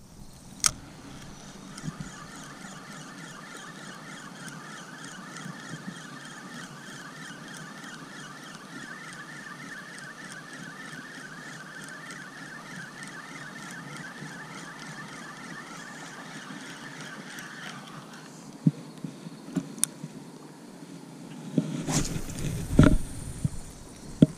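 Penn Slammer III 5500 spinning reel cranked in a steady retrieve, its gears giving an even, fast-wavering whir that stops about three-quarters of the way through. After it, a few sharp clicks and a loud, low rumble near the end.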